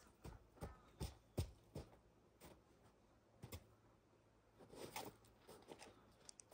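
Faint snow crunching: a dozen or so short, irregular crunches as snow is packed into a plastic crate used as a mould for igloo blocks.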